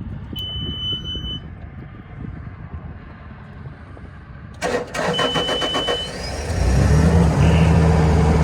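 Bobcat T590 compact track loader's diesel engine being started: a warning beep of about a second, then the starter cranking with a rattle and a second beep about five seconds in. The engine catches about a second and a half later and settles into a steady idle.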